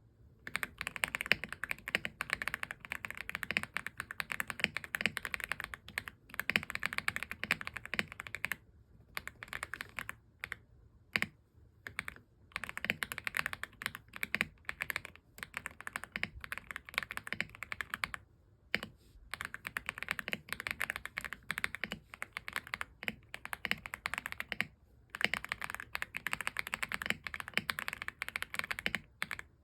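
AULA F75 75% mechanical keyboard being typed on fast, its keys clacking in dense runs broken by several short pauses.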